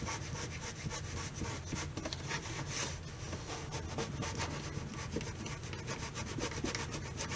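A thin metal spatula being worked under a guitar's fingerboard extension, scraping and rubbing against the wood as it cuts through glue softened by a heat iron. It makes a continuous run of short, scratchy strokes.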